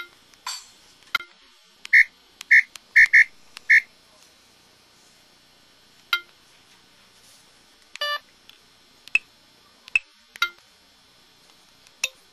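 Samsung SCH-X750 mobile phone key tones and sound effects: a quick run of five short beeps, then single short clicks and chirps every second or two, one of them a longer warbling chirp about eight seconds in.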